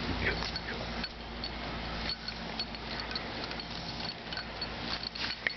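Light irregular clinks of a dog's collar tag as the dog trots along, over a steady outdoor background hiss.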